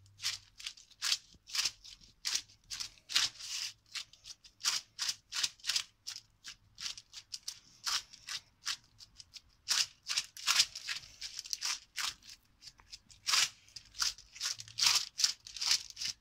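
Parchment paper crinkling and rustling in quick, irregular crackles as gloved hands press and pat minced-meat patties flat on it, a little louder around the middle and near the end.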